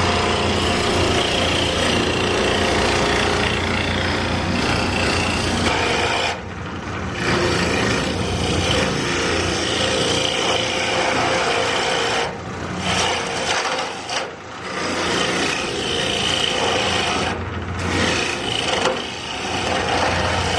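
Wood lathe spinning a faceplate-mounted wooden blank while a hand-held turning tool cuts the outside shape: a steady rasping cut over the lathe motor's hum. The cut breaks off briefly about four times as the tool lifts from the wood.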